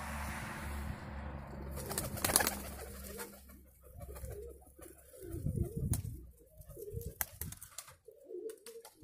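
Domestic pigeons cooing in repeated wavering calls. In the first few seconds there is a rushing noise with a burst of sharp clicks, loudest about two and a half seconds in.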